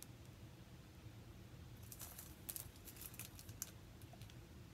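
Faint crinkling and ticking of plastic sticker packets being handled, a few light crackles about halfway through over quiet room hum.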